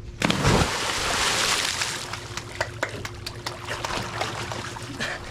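A person jumping into open water: one big splash about a quarter second in, spray falling back for a couple of seconds, then scattered drips and small splashes as the water settles.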